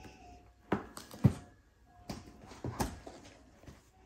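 Cardboard kit boxes being handled and set down, a handful of knocks and taps with the loudest about a second in.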